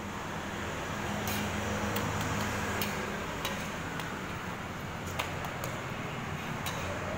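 Metal spatula clicking and scraping against a flat griddle as roti canai are turned and pressed, a handful of sharp taps at uneven intervals over a steady low hum.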